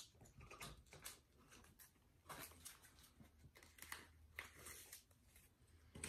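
Near silence: quiet room tone with a faint low hum and scattered faint rustles and clicks of small packaged items being handled.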